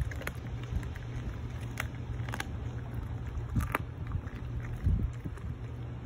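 German shepherd chewing raw meat, with a few sharp crunches about a second apart, over steady wind rumble on the microphone.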